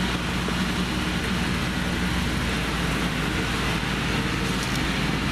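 Farm tractor engine running steadily as it drives past, a constant low hum.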